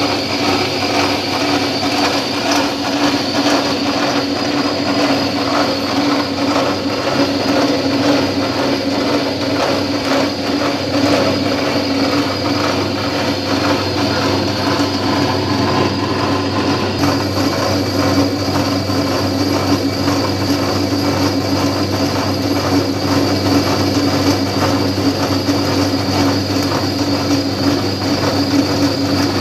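Automatic milling machine running steadily as it cuts a large steel roller: a continuous motor hum with a steady high tone over a fast, dense rattle from the cutting.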